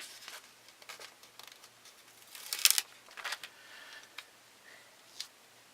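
Paper and sticker sheets being handled on a desk: a short rustling scrape about two and a half seconds in, a smaller one just after, and a few light clicks and taps.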